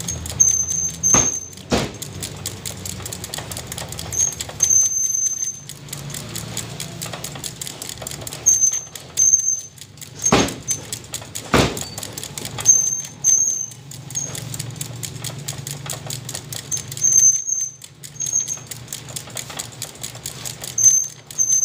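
Meat cleaver chopping a roast chicken on a wooden chopping block: a few sharp, spaced-out chops. Short high chirps repeat in clusters throughout.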